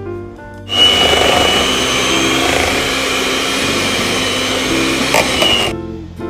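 Electric hand mixer running, its beaters whirring through cream cheese in a stainless steel bowl to soften it, with a high whine over the motor noise. It switches on suddenly about a second in and stops about five seconds later, near the end, with guitar music quietly underneath.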